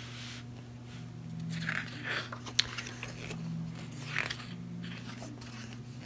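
Photobook cards and inserts being handled: rustling and crinkling, with a single sharp click about two and a half seconds in, over a steady low hum.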